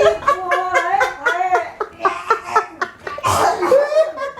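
Laughter: a run of short pitched laughs in quick pulses, with a breathy burst of laughing about three seconds in.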